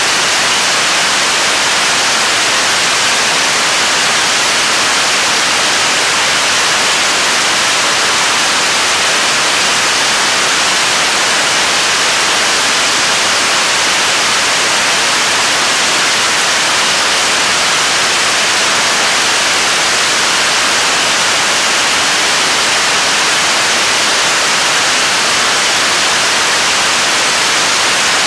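Korean launch vehicle's third-stage 7-tonne-class liquid-fuel rocket engine firing steadily in a long-duration hot-fire test: a loud, even rushing hiss of exhaust, strongest in the upper range.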